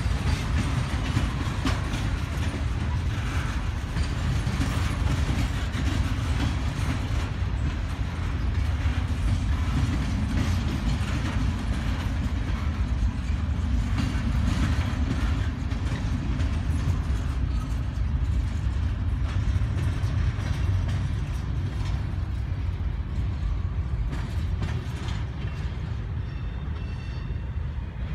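Freight train cars (boxcars and gondolas) rolling past: a steady low rumble of steel wheels on rail, with wheels clicking and clanking.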